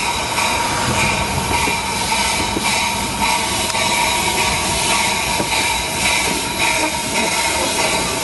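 Miniature-railway steam train running steadily along the track, with a faint regular beat.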